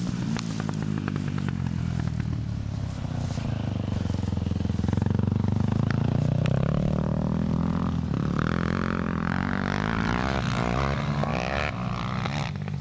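An engine running steadily, a little louder in the middle, with scattered clatter.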